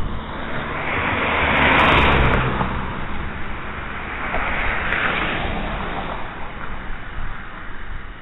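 Cars passing by on a road. A louder pass swells to a peak about two seconds in and fades away, and a second, lighter pass comes around five seconds in, over a low rumble.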